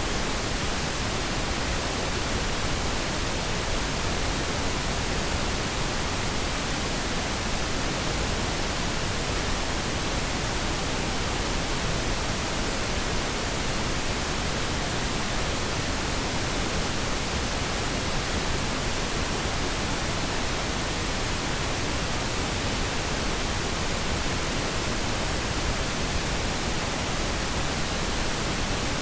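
Steady pink noise, an even hiss across the whole frequency range, used as a test signal for audio calibration.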